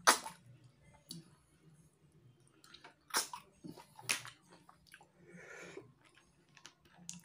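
Sharp, wet slurps of a person sucking freshwater snails (tutut) in spicy sauce out of their shells, several short sucks, the loudest right at the start and two more strong ones about three and four seconds in, with softer chewing between.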